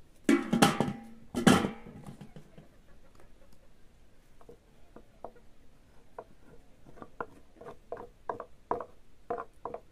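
Two loud metal clatters with brief ringing as a steel plate is set over a steel pot and the wooden pestle is laid across it. Then a steel ladle scrapes and knocks inside a wooden mortar, scooping out crushed soybeans, the strokes coming faster, about two a second, near the end.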